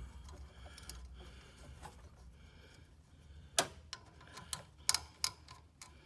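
Screwdriver backing out the screw of a metal TXV bulb clamp: scattered sharp metallic clicks and ticks, mostly in the second half, the loudest about three and a half seconds in and a few more around five seconds.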